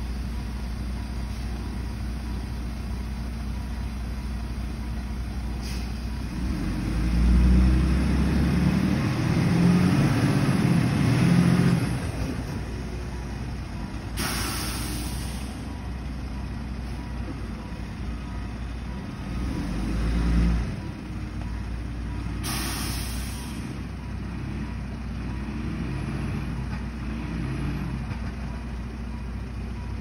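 Distant diesel engines of stuck concrete pump trucks running steadily, revving hard under load for about five seconds from seven seconds in and again briefly near twenty seconds as a truck strains to pull free of the mud. Two short hisses of released air come midway.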